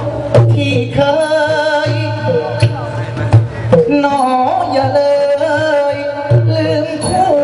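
Thai likay singing: a singer's amplified voice sliding through an ornamented melody with strong vibrato, accompanied by traditional Thai music with repeated drum strokes.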